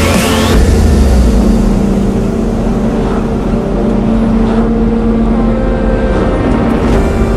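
Diesel engine of a heavy lorry running steadily at cruising speed, pulling a laden low loader, with road and tyre noise.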